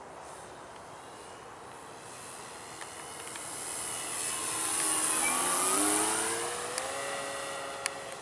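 Radio-controlled Hangar 9 P-47 Thunderbolt model warplane making a low pass: its engine and propeller swell to loudest about five or six seconds in, the pitch shifting as it goes by, then fade as it climbs away.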